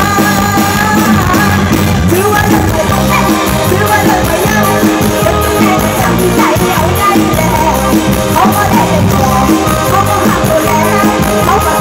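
Live Isan-style Thai pop band music played loud through a PA, with a steady driving beat and a woman singing over it.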